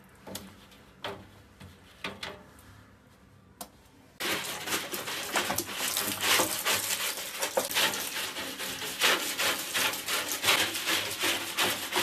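Scrubbing the inside of a washing machine's perforated stainless-steel inner drum to clean off thick grime: a dense, continuous rasping that starts about four seconds in, after a few light knocks.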